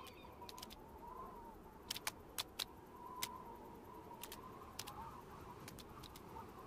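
Faint cartoon sound effects: a soft wavering whistle with scattered sharp clicks, a few close together about two seconds in.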